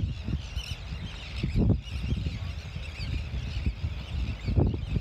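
Wind gusting on the microphone with a low rumble, strongest about a third of the way in and again near the end. Behind it runs a steady background of distant high-pitched bird calls.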